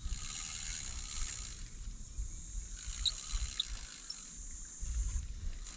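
Spinning reel being wound as a hooked fish is brought in, over an uneven rumble of wind on the microphone.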